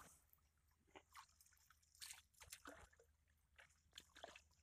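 Near silence with faint scattered drips and small splashes of water, a dozen or so short ones spread through the few seconds.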